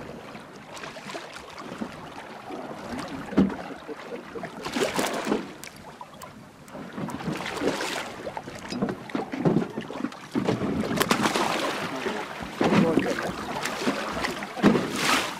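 Sea water splashing in irregular bursts alongside a boat as a hooked conger eel thrashes at the surface, with wind buffeting the microphone.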